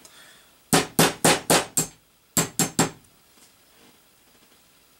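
A small mallet tapping a steel pin punch to drive a retaining pin home in a 1911 pistol frame, steel on steel ringing sharply. There are five quick taps at about four a second, a short pause, then three more.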